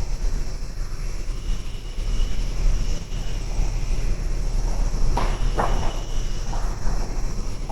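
Insects trilling steadily outdoors over a constant low rumble, with two short scratchy sounds a little past the middle.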